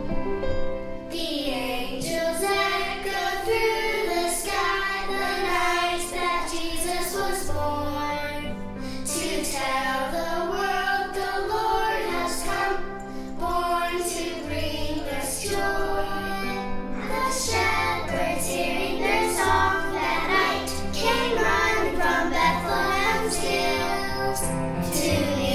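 Children singing a song together over instrumental accompaniment with bass notes and a steady percussive beat.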